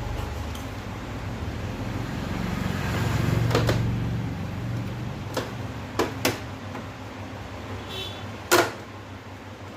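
Plastic locking clips of an LED TV's back cover snapping loose as the cover is pried off: five sharp plastic clicks, the loudest near the end, over a low steady hum.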